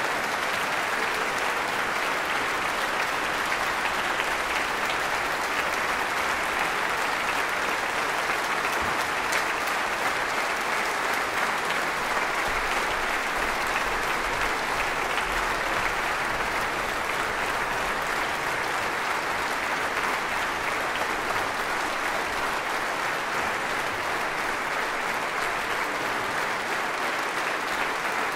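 Large audience applauding steadily in a concert hall: a dense, even clapping.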